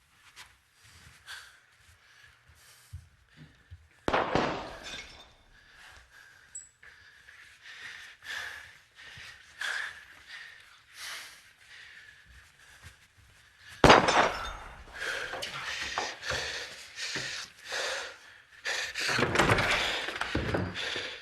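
Beer bottles bursting with a sudden pop and breaking glass, once about four seconds in and again, louder, near fourteen seconds. Fainter clicks and clatter come between them, and a longer stretch of clattering follows near the end.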